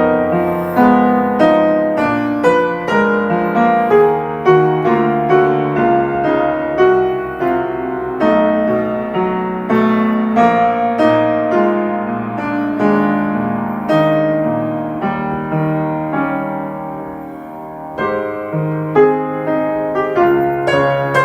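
Piano playing a slow, melodic piece in chords, each note struck and left to fade. It grows softer near the end, then comes back stronger shortly before the close.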